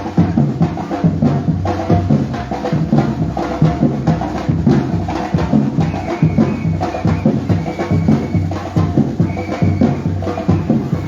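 Batucada percussion group drumming a dense, continuous rhythm.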